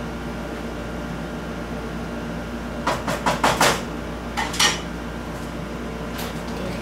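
A utensil clinking and scraping against a pot on the stove: a quick cluster of clatters about three seconds in, then two more a second later, over a steady background hum.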